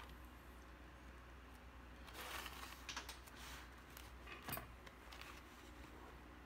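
Faint handling noises: a few soft rustles and light clicks as hands lay out and stretch a seed-bead cord bracelet on a paper towel.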